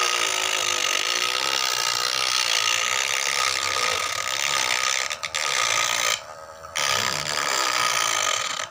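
Homemade engraving tool built from a broken hair clipper's small electric motor, whirring with a steady whine as its burr bit grinds letters into a wooden board. It cuts out briefly about six seconds in, then runs again.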